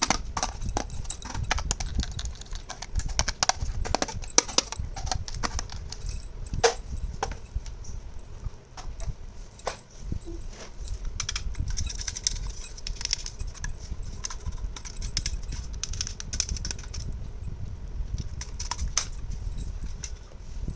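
Small plastic toy kitchen pieces being handled, making many irregular light clicks and rattles over a low handling rumble.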